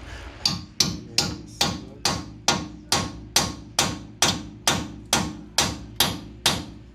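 A hammer striking metal about fifteen times at a steady pace of roughly two blows a second. Each blow is a sharp clank with a short ring.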